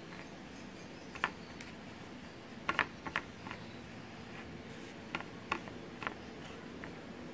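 Steel spoon clinking and scraping against a ceramic plate while stirring a dry spice masala: light, irregular clicks, a couple close together about three seconds in.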